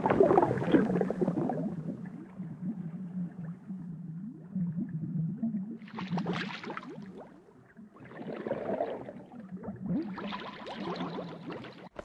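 Diving-suit dive sound effect: a rush of water at the start, then a muffled underwater hum with gurgling surges of bubbles about six, eight and ten seconds in.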